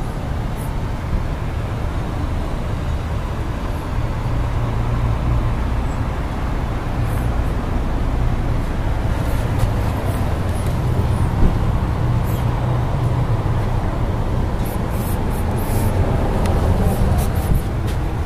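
Steady low rumble of motor vehicle noise, with a few faint clicks in the second half.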